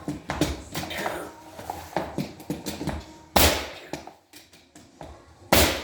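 Knocks and clatter of work on a job site, with two loud sharp bangs about two seconds apart, each ringing out briefly.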